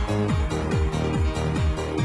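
Electronic dance music, techno-style, with a fast, steady kick-drum beat under sustained synth notes.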